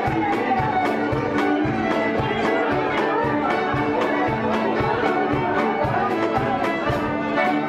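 Folk dance band playing: violins and accordion carrying the melody over a steady drum beat.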